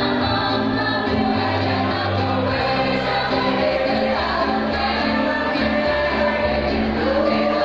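A choir singing, holding sustained notes that move from chord to chord.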